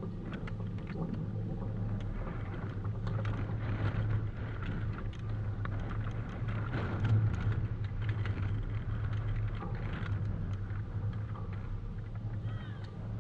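Steady low rumble with faint knocks of a tennis ball being bounced on a hard court before a serve.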